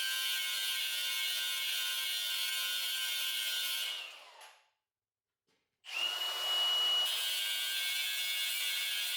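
An electric power tool running steadily with a high whine. About four seconds in it winds down with a falling pitch, then there is dead silence for about a second. It then spins back up with a rising whine and runs on steadily.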